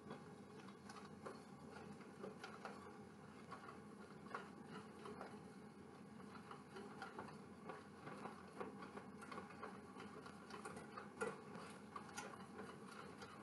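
Faint, quick, irregular clicking of a wire whisk against a stainless steel saucepan, beating eggs with sugar and melted butter.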